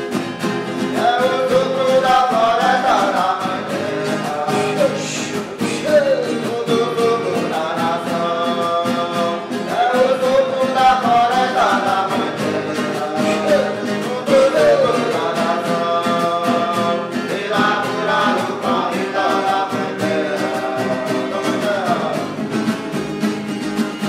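Huni Kuin song: voices singing a gliding melody over acoustic guitar accompaniment.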